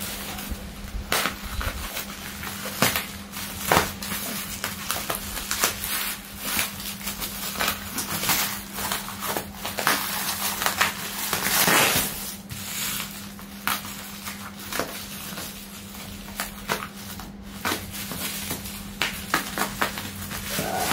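Scissors cutting into a parcel wrapped in plastic and packing tape, then the plastic and tape crackling and crinkling as they are torn and pulled open by hand, in many short snaps with a longer tearing stretch about halfway through. A faint steady hum runs underneath.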